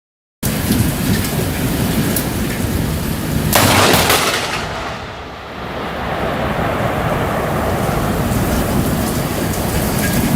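Thunderstorm: heavy rain with a low rumble of thunder, and a sharp, loud crack of thunder about three and a half seconds in.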